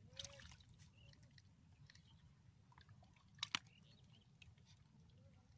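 Faint wet squelching and splashing of a hand working in a muddy, water-filled hole, with two sharp slaps about three and a half seconds in.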